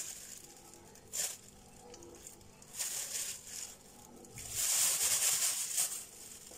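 Thin plastic bag crinkling in short bursts as marinated chicken pieces are packed into it by hand, with a longer stretch of crinkling about two-thirds of the way through.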